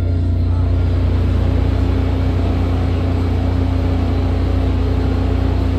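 Steady low hum and rumble inside a SEPTA Market-Frankford Line subway car, with a steady humming tone over it.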